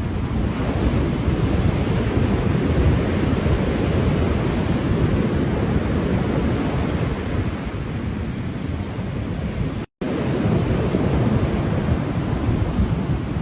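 Ocean waves washing in a steady rush of surf, heavy in low rumble. The sound cuts out completely for a split second about ten seconds in.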